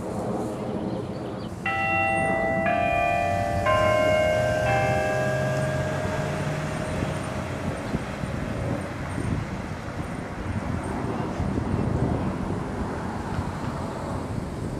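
Bells chiming four strokes about a second apart, each ringing on and fading out over a few seconds, over the steady hum of street traffic.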